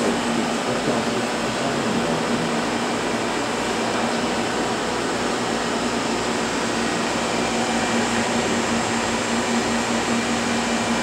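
Steady hum and hiss of laboratory machinery running, with a constant low droning tone under an even noise.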